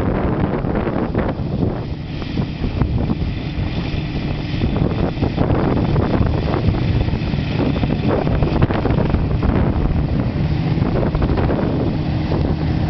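Petrol ride-on lawn mower engine running steadily, with wind buffeting the microphone.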